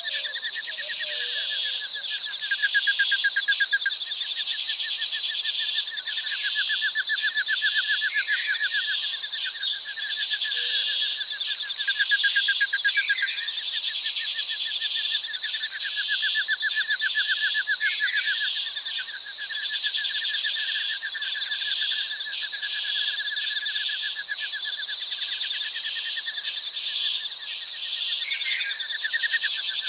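Rainforest ambience: a dense, steady high-pitched insect chorus with a fast pulsing trill that stops and starts every few seconds. Short rising bird calls break in several times.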